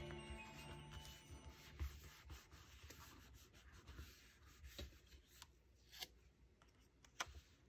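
Faint rubbing of fingers and paper as stickers are pressed onto a lined notebook page, with a few light, sharp clicks from metal tweezers being handled.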